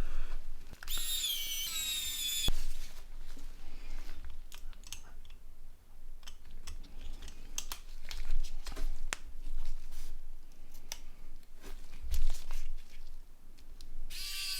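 Small plastic phone housing parts and buttons being handled and pressed into place: scattered light clicks, taps and rattles. A high, wavering whine sounds briefly about a second in and again near the end.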